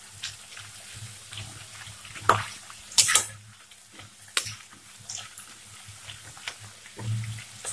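Thin potato slices deep-frying in hot oil in an aluminium kadai: a steady sizzle, with a perforated metal spoon clicking and scraping against the pan as the slices are stirred, sharpest a little over two and three seconds in.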